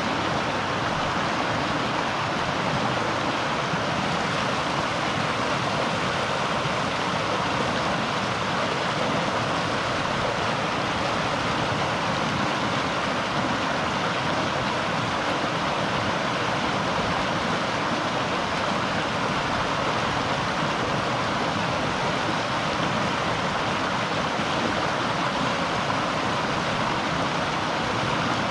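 River water flowing: a steady, unbroken rush of running water.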